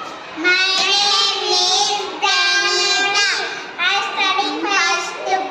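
Young child's voice sounding out a word by its phonic sounds in a drawn-out, sing-song chant: about four long syllables, one sliding down in pitch about three seconds in.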